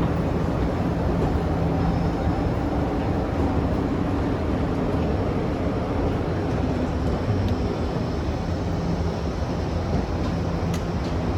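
Steady drone of a train at a railway station platform, with a low hum running under it and a few faint clicks.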